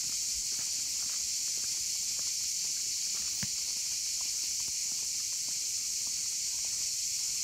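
Cicadas buzzing in a steady, high-pitched chorus from the trees, with faint scattered footsteps on gravel underneath.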